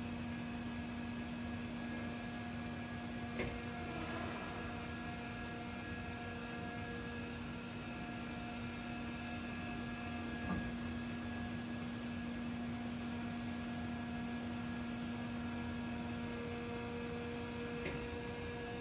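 CNC oscillating-knife leather cutting machine running: a steady hum under an even noise, with three short clicks spread through.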